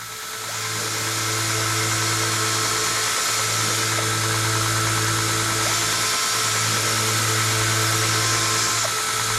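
Handheld electric power tool grinding steel, spinning up in the first second and then running steadily under load.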